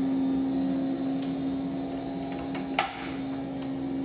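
Steady electric appliance hum in a kitchen, with a single sharp clack about three seconds in.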